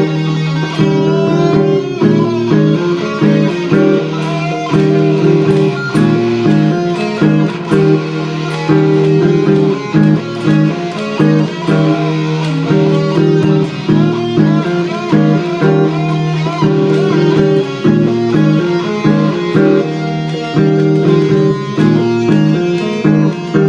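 Gibson Les Paul electric guitar playing lead lines with bent, wavering notes over a repeating chord pattern laid down on a Boss loop pedal.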